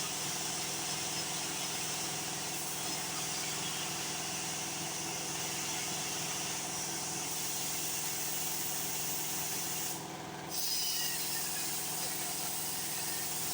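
A machine running steadily with a continuous hiss and a hum of several steady tones, dipping briefly about ten seconds in.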